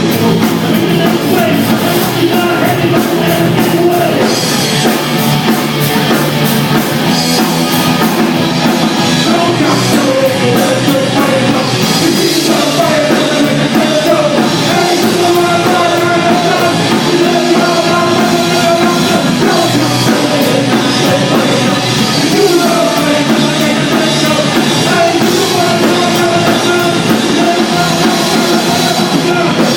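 Loud rock music with a drum kit and a singing voice.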